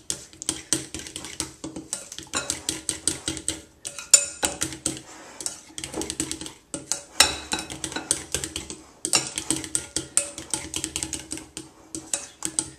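A spatula stirring thick batter in a glass mixing bowl, scraping and clicking against the glass in quick strokes with short pauses, working the lumps out of the mix.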